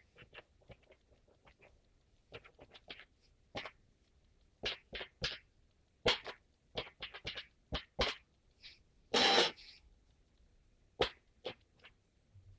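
Plastic keys of a Canon P25-D desktop printing calculator being pressed, an irregular series of sharp clicks, some single and some in quick runs. About nine seconds in there is one longer burst of noise lasting just under a second.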